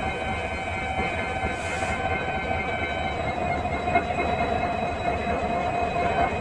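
Indian Railways WDP4D diesel locomotive's EMD two-stroke engine running steadily: a low rumble with a constant hum and several steady higher tones over it. One small click about four seconds in.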